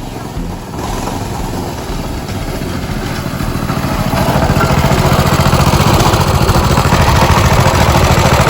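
Vehicle engine running, growing louder about a second in and again at about four seconds as it pulls away.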